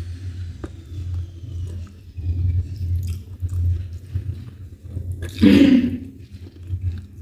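Close chewing and biting sounds of someone eating chicken and ugali, with uneven soft low thumps. One brief, louder sound about five and a half seconds in.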